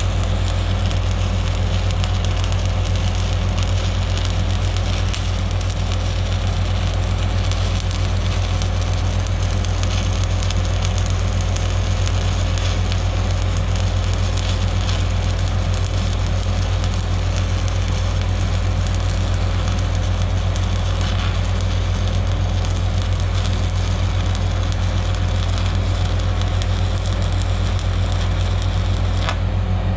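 A stick welding arc crackling steadily as a 1/8-inch electrode burns in on light gauge steel, with a steady low hum underneath.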